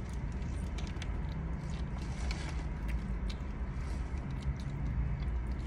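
A person biting and chewing a foil-wrapped burrito: scattered small mouth clicks and crinkles of the foil, over a low steady rumble.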